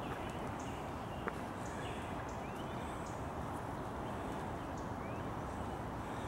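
Forest ambience: a steady rushing background noise with small birds chirping high and short every second or so, and a few brief rising calls. One small click about a second in.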